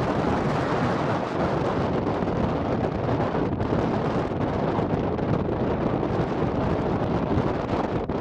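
Blizzard wind blowing hard, buffeting the microphone: a loud, steady rushing noise with a deep rumble and no break.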